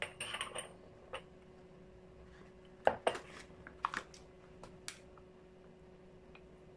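Light clicks and taps as a plastic pourer cap is handled at a condiment bottle. About three seconds in comes a sharp clink, the loudest sound here, then a few more clicks as a small stainless steel funnel is set into the bottle's neck.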